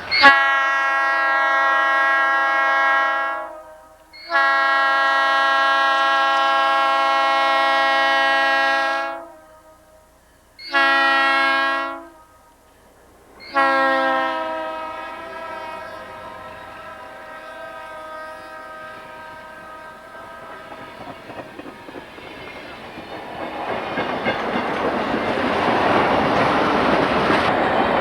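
Locomotive air horn sounding the grade-crossing signal: two long blasts, a short one and a final long one that fades and drops slightly in pitch. The rumble of the passing train and its wheels on the rail joints then builds near the end.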